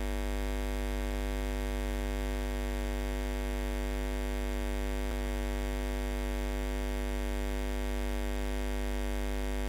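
Steady electrical mains hum in the microphone and sound system, a low buzz with many evenly spaced overtones at constant level. A faint click about five seconds in.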